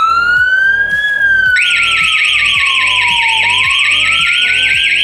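Italian Alarm Futura home burglar alarm sirens going off after the alarm is triggered. A slow wail rises and falls in pitch, and about a second and a half in a louder, higher, fast-warbling siren tone joins it, at about four wobbles a second.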